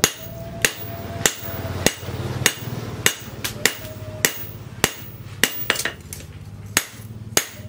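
Hand hammer striking a hot leaf-spring steel knife blade on a cylindrical steel post anvil. The blows come steadily, about one every 0.6 s with a short pause near the end, and each has a brief metallic ring.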